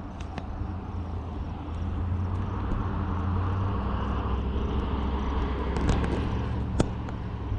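A motor vehicle's engine and road noise: a low, steady rumble that grows louder about two seconds in and eases off near the end. A single sharp click comes shortly before the end.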